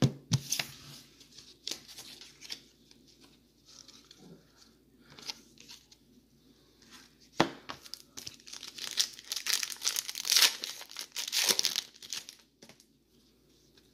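Wrapper of a 2018 WWE Women's Division trading card pack being torn open and crinkled by hand. The crackling comes in scattered bursts and is busiest from about eight to twelve seconds in.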